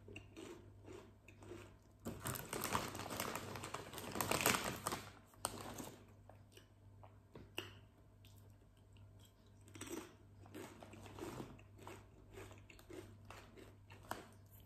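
Potato chips being bitten and crunched in the mouth, in a long run of crackly chewing followed by a few shorter crunches with quieter gaps between.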